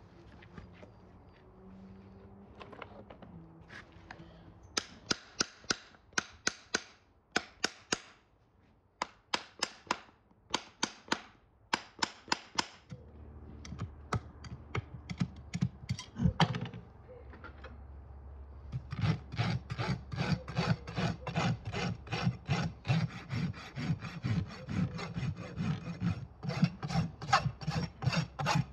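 Farrier's rasp filing a horse's hoof wall in repeated rasping strokes as the hoof is finished off around a newly nailed-on shoe. The strokes come in a slower run at first, then a faster, continuous run in the second half.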